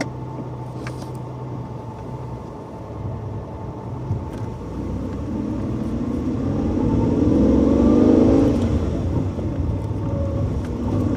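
Hyundai Eon's engine running with the air-conditioning on, then the car accelerating: the engine sound swells from about three seconds in, peaks near eight seconds and falls away as it is shifted up to second gear.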